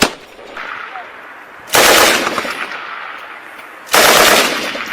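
M240B belt-fed 7.62 mm machine gun firing two short bursts about two seconds apart, each dying away in a trailing echo.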